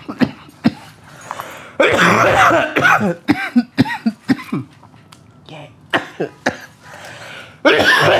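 A man coughing hard after a hit from a glass water pipe. There are two long coughing fits, one about two seconds in and one near the end, with single short coughs between them.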